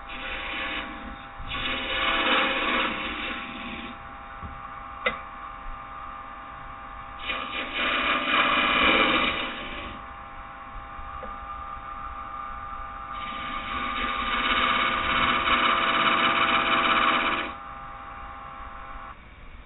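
Wood lathe motor running with a steady hum while a carbide-tipped turning tool cuts into spinning green oak in three passes of a few seconds each, throwing off shavings. The hum stops near the end.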